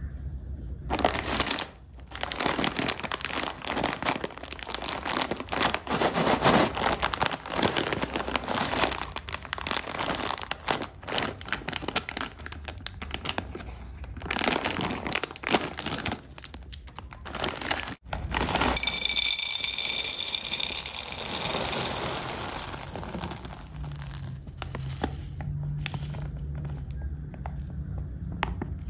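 A plastic cereal bag (Milo chocolate cereal balls) crinkling as hands work and tear it open: dense, irregular crackling for most of the first two-thirds. Past the middle it gives way to a steadier rushing for several seconds, then quieter, sparser rustling.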